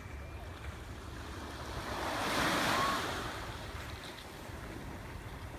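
Sea waves washing onto the shore, one wave swelling up and breaking louder about two to three seconds in, with wind rumbling on the microphone.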